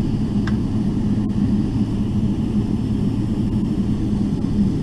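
Steady low rumble and hum inside a Boeing 777-300ER's cabin as the airliner taxis slowly, its GE90 engines at idle.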